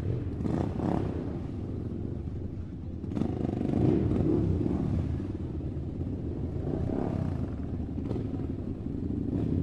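Two toy RC cars, a monster-truck rock crawler and a small Hummer-style truck, driving over dirt, their small electric motors and plastic gearboxes whirring. The whirring rises and falls as they speed up and turn, and is loudest about three to four seconds in.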